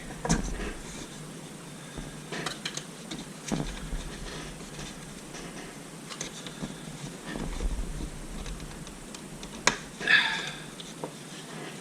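Scattered light clicks and scrapes of a hand tool prying at a small metal cover on a piece of consumer audio electronics, with a sharp click and a short clatter near the end as it gives way.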